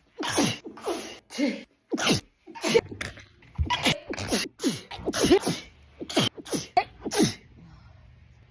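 A woman's sneezing fit: about a dozen sharp sneezes in rapid succession, each sliding down in pitch, stopping about seven and a half seconds in.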